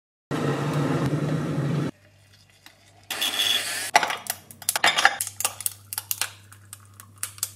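A burst of steady rushing noise lasting about a second and a half, then a run of sharp clinks and scrapes of cutlery against crockery.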